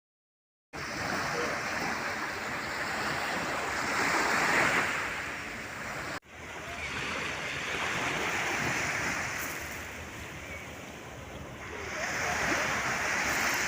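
Sea surf washing onto a beach, with wind on the microphone; the surf swells louder about four seconds in and again near the end.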